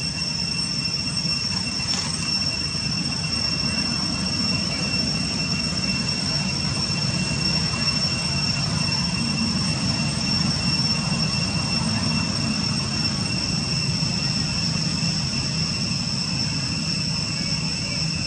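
Insects in the forest, likely cicadas or crickets, droning steadily with a constant high-pitched whine, over a low steady rumble. A brief click about two seconds in.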